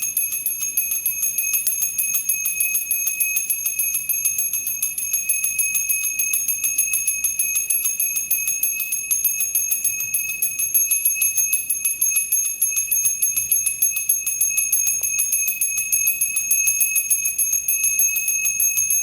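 Temple bell rung continuously with rapid strokes, about five a second, so its bright high ringing tone never dies away.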